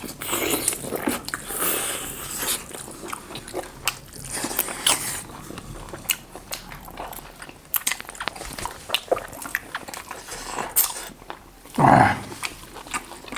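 Close-miked eating: irregular biting, chewing and wet mouth clicks as chicken and mutton lollipops are eaten. A short, louder vocal sound comes about 12 seconds in.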